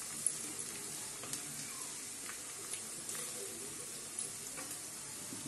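Chopped onion and garlic sizzling in hot oil in a nonstick pan while a wooden spatula stirs them, with a few light taps and scrapes of the spatula.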